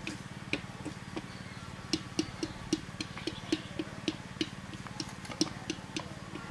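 A series of sharp knocks, about three or four a second, over a steady low hum.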